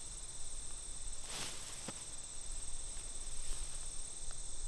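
A steady, high-pitched insect chorus buzzing without a break. About a second and a half in there is a brief rustling swish, followed by a small click.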